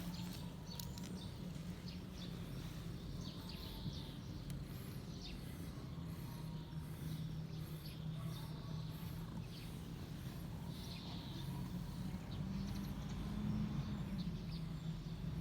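Outdoor ambience: a steady low hum with a few short, high bird chirps now and then.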